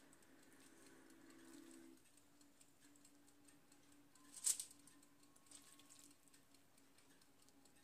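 Near silence with a faint steady hum, broken about halfway through by a brief crinkle of aluminium foil as a raw chicken fillet is laid onto a foil sheet.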